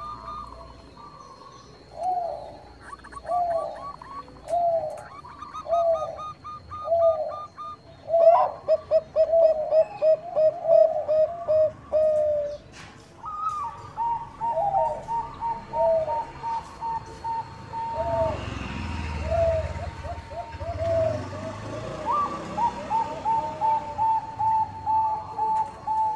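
Bangkok perkutut (zebra doves) cooing: a series of short, even-spaced notes that speeds into a rapid staccato run about eight seconds in. From about halfway, a quicker, higher series overlaps slower, lower notes, sounding like more than one bird.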